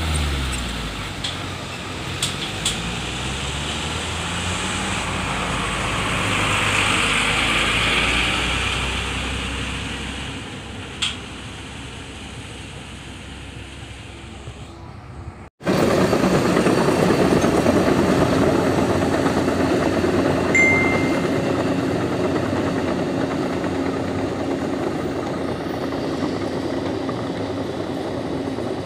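Heavy vehicle engine running, rising and falling in the first half. About halfway through it cuts off abruptly into a louder, steady engine drone.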